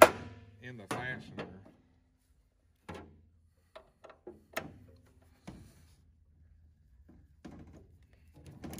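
One hammer tap on a hex extractor bit at the start, then a few separate metal clicks and clinks as a ratchet and wrench are fitted onto the bit, which is driven into a stripped hex bolt.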